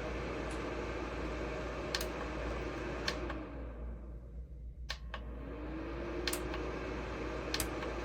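Small space heater's fan blowing steadily, then spinning down a few seconds in and spinning back up, its hum falling and then rising again. Several sharp clicks are spread through it.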